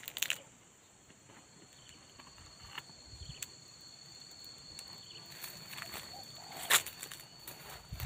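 Steady high-pitched insect drone in the background, with a few soft rustles of handling and one sharp click about seven seconds in.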